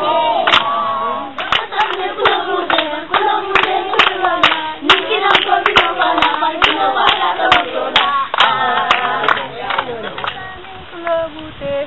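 A group of children singing a West African children's song together while clapping hands to a steady beat of about two to three claps a second.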